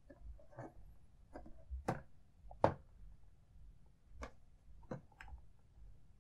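Hard plastic parts of a Millennium Falcon toy ship clicking and knocking as a switch and its small cannon mount are worked by hand. About eight sharp, irregularly spaced clicks, the loudest a little under three seconds in.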